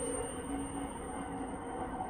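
Dark ambient background music: low drawn-out drone tones held steadily.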